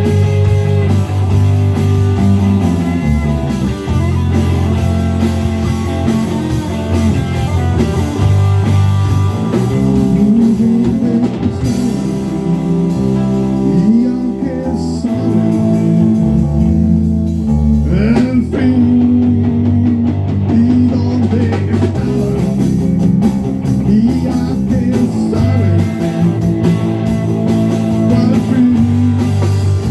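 A band playing an instrumental passage: electric guitar with bent notes over bass and a drum kit.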